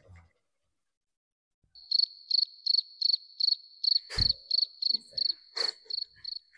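Cricket chirping in a steady run of high chirps, about three a second, starting about two seconds in: the stock "crickets" sound effect for an awkward silence. A single thump sounds about halfway through the chirping.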